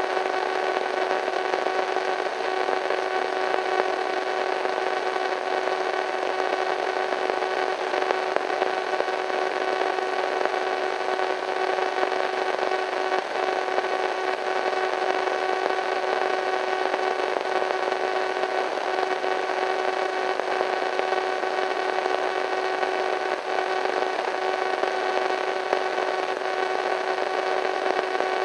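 Radio static: a steady hiss of white noise with a few faint tones humming through it.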